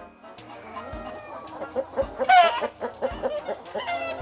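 Chickens clucking in a run of short notes, with a loud, brief squawk about halfway through and a shorter one near the end.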